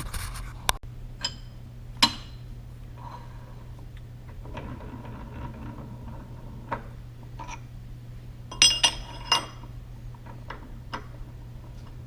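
Metal tooling clinking and knocking as it is handled: a sharp ringing clink about two seconds in and a quick cluster of clinks about three quarters of the way through, over a steady low hum.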